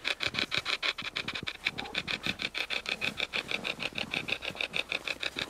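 A hacked radio used as a spirit box, sweeping through stations: a rapid, even stutter of chopped static and radio fragments, roughly nine pulses a second.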